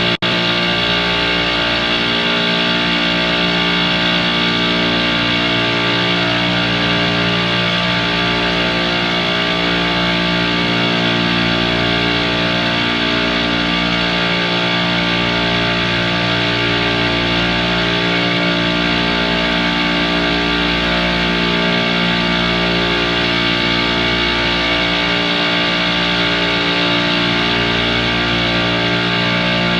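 Loud, steady background music with guitar, its chords changing every second or two.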